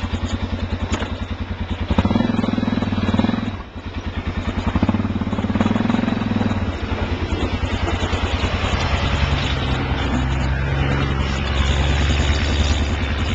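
ATV engine running under way, the throttle opening and easing off. It drops away briefly a few seconds in, then picks up and runs steadily.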